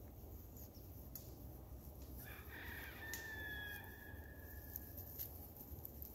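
A rooster crowing once, a call of about three seconds starting about two seconds in, faint over a low steady background rumble.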